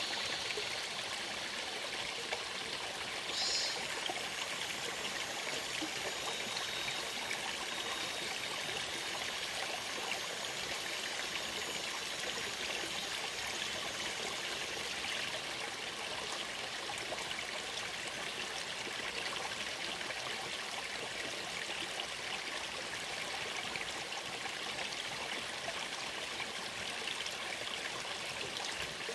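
Small, shallow stream of water running steadily over rocks, a continuous trickling flow.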